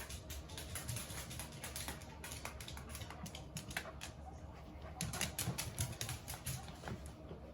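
A corgi's claws clicking and tapping on a hard floor as it moves about, in quick irregular runs of clicks that grow busier about five seconds in.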